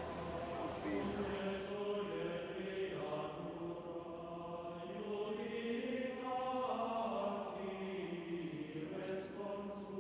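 A choir chanting in slow, held notes that step from pitch to pitch.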